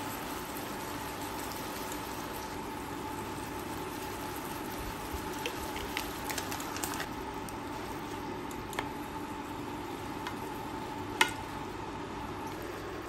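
Canned fish, greens and sauce simmering and bubbling in a pan on the hob, with a steady hum beneath. A few light clicks come midway, and a sharp knock near the end as a wooden spoon goes into the pan.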